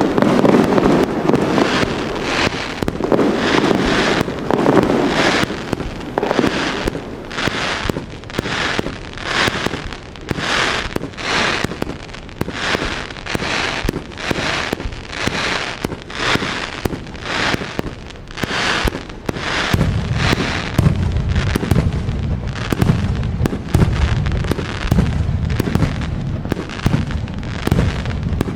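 A fireworks display going off: a steady run of sharp reports, about one to two a second. From about two-thirds of the way through, deeper booms join in.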